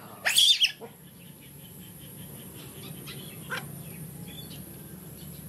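A baby macaque gives one short, loud, high-pitched squeal about a quarter second in, followed by faint chirps and ticks in the background.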